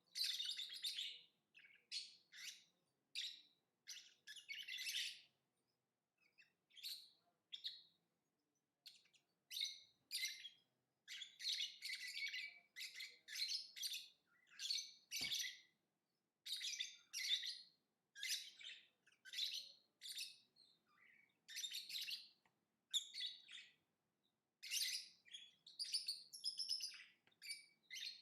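Lovebird chirping in rapid, high-pitched bursts of calls, phrase after phrase with short pauses between. A single sharp click sounds about halfway through.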